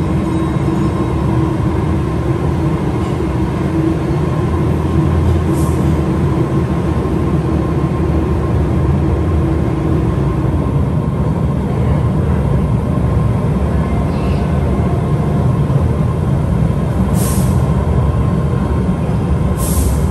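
MBTA Red Line subway train running with a steady rumble and hum, one lower hum tone dropping out about halfway through. Short hisses of air from the train's brakes, once about six seconds in and twice near the end.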